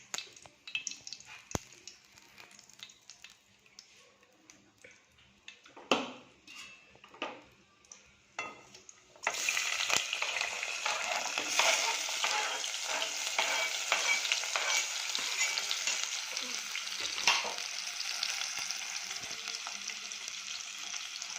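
Hot oil in a cooking pan: a few knocks and clicks of utensils, then about nine seconds in, a sudden loud sizzling as food goes into the hot oil. The frying runs on steadily, with the scrape and tap of stirring.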